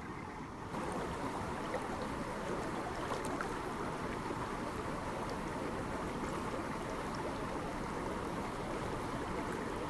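Shallow rocky stream rushing steadily, coming in suddenly louder about a second in.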